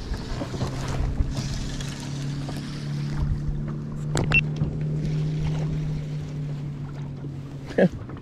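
Spinning reel being cranked steadily to bring in line, a steady low whir that stops near the end, with wind buffeting the microphone early on and a sharp click about four seconds in.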